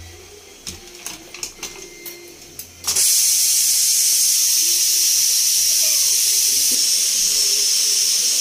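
Aluminium pressure cooker being vented by lifting its weight with tongs: a few light metal clicks, then about three seconds in a sudden loud, steady steam hiss as the pressure escapes.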